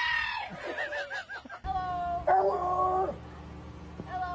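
A dog whining and yipping in short, wavering cries. About a second and a half in the background changes, and a longer, steady-pitched whining call follows, with a shorter one near the end.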